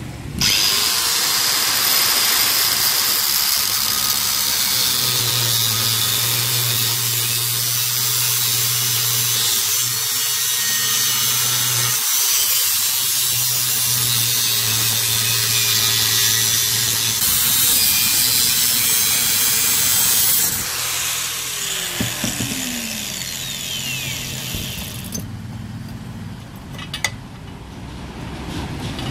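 Angle grinder with a thin cut-off disc cutting around the weld seam of a stainless steel motorcycle muffler's end cap, a loud steady grind. About 20 s in the cutting stops and the disc winds down with a falling whine.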